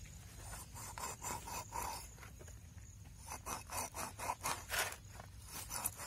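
Large curved knife scraping the scales off a whole catla fish on a metal plate, in short rasping strokes about three a second that grow louder in the second half.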